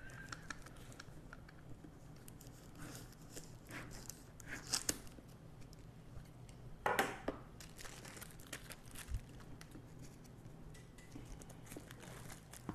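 Plastic shrink wrap crinkling and tearing as it is cut and peeled off a boxed record set, in scattered short crackles, the loudest a little before 5 seconds in and again around 7 seconds.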